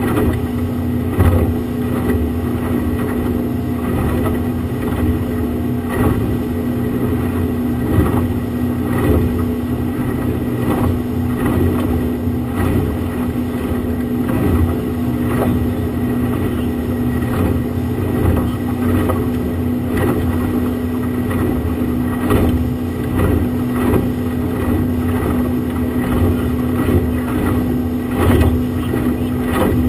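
Outboard motor running steadily at speed, a constant drone, with water rushing past the hull and frequent irregular knocks as the hull hits the chop.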